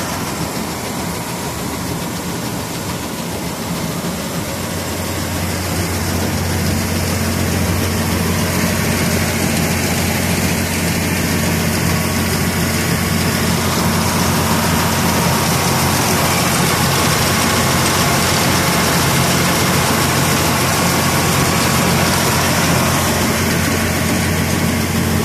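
Rice harvesting machine's engine running steadily, growing louder about four seconds in and then holding a steady low hum.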